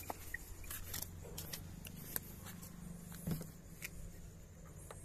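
Steady low hum in a car's cabin, with scattered small clicks and rustles of handling as someone moves about inside the car.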